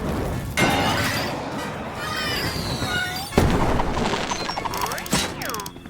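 Cartoon firework sound effects: whistling rockets and several noisy bursts, the loudest bang about three and a half seconds in.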